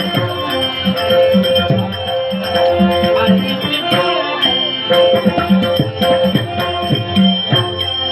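Instrumental passage of a Marathi devotional Dashavatar song: sustained held notes over a steady hand-drum rhythm and jingling percussion.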